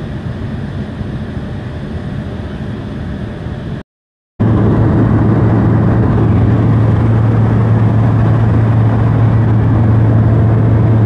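Airliner cabin noise: the engines and airflow make a steady rushing sound. After a brief cut about four seconds in, the noise is louder, with a strong steady low hum.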